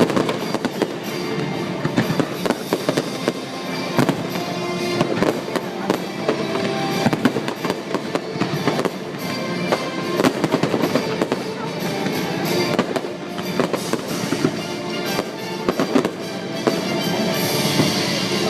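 Fireworks going off in an irregular series of many sharp bangs over loud show music playing throughout.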